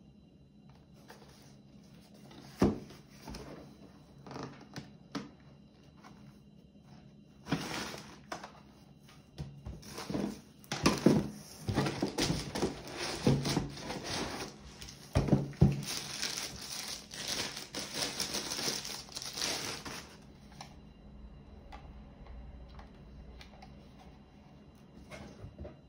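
Packaging being handled during an unboxing: crinkling and rustling with irregular clicks and knocks, busiest in the middle stretch. One sharp knock comes a few seconds in.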